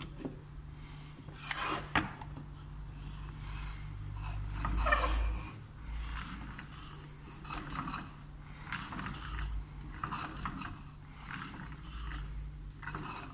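Wooden automaton handcar toy rolled along a tabletop: its wooden wheels rumble and its plywood gears and see-saw lever rattle and scrape in uneven bursts. There are two sharp knocks about one and a half and two seconds in, and the rumble swells about halfway through.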